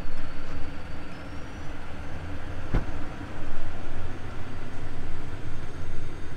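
DJI FPV drone on Ethix P4 propellers fitted with aftermarket prop adapters, hovering: a steady whir of the propellers with a thin high motor whine that steps up in pitch a little over a second in. A single sharp knock comes a little before the middle.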